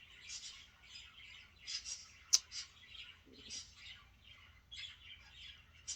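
Faint rustling and light scraping as wire bird-cage panels are handled, with one sharp click a little over two seconds in.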